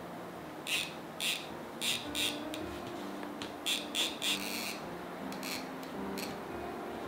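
Rotary cutter run along a ruler through layered cotton gingham: a series of short, crisp cutting strokes in small clusters, over soft background music.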